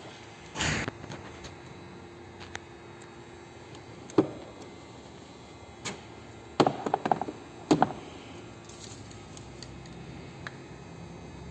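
Scattered knocks and clicks: a handful of single knocks and a quick rattling cluster about two-thirds of the way through, over a faint steady background.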